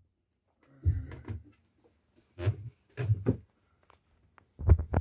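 A few separate dull knocks and bumps, the loudest just before the end: wooden cabin fittings and the bunk locker being handled.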